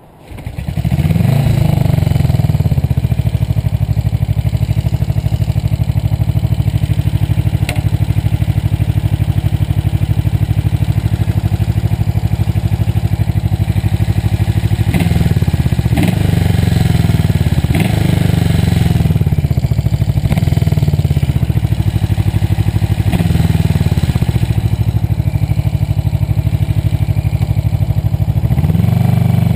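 1978 Yamaha XS400's air-cooled parallel-twin engine fires up about a second in, its revs sweeping up, then runs steadily under the rider as the bike is ridden on its first ride after a rebuild. Its revs drop and rise several times in the second half.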